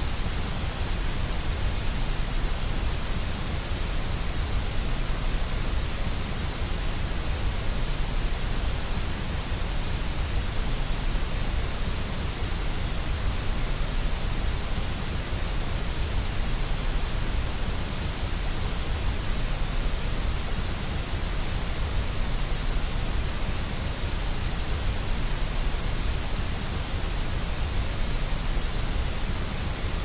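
Steady white noise: an even, unchanging hiss with no breaks.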